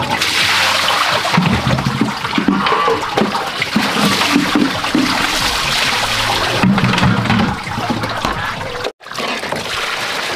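Water running steadily from a pipe into a plastic basin, splashing as water is scooped and poured from a plastic bowl over dishes being rinsed. The sound drops out for a moment near the end.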